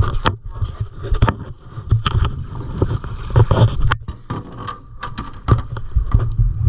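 Wind rumbling on the microphone and water lapping against a small boat, with a string of sharp knocks and clanks as a metal grapnel anchor is hauled aboard and set down on the deck.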